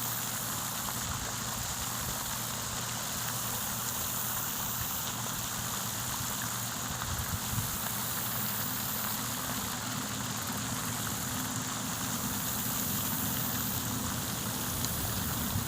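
Steady splashing hiss of a pond fountain's spray falling on the water, with a low steady hum underneath.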